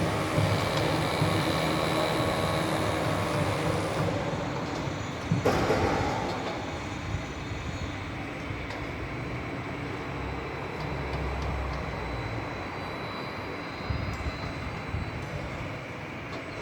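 Steady rumbling vehicle noise, with a sharp knock about five and a half seconds in.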